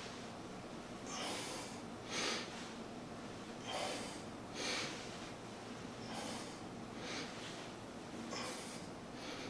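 A person breathing hard under exertion during a twisting core exercise: short, faint, noisy puffs of breath, about one a second.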